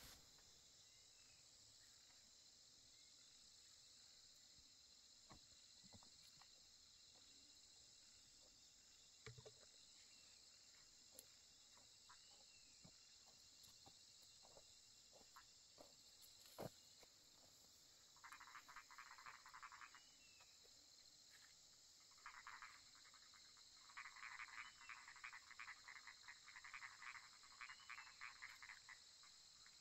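Faint frog and insect chorus: a steady high insect trill throughout, and a little past halfway frogs begin calling in rapid pulsed trains that come thicker toward the end. A few faint ticks come before the frogs start.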